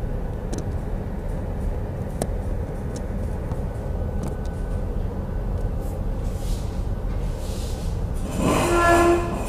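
Steady low rumble of the ship's engines and machinery, with scattered clicks from a phone being handled. Near the end comes a short pitched tone with overtones, the loudest sound here.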